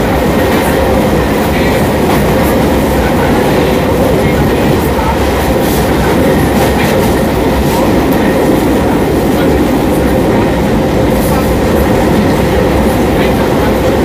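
CPTM Series 4400 electric multiple unit running, with a steady motor hum over the rumble and clatter of its wheels on the rails.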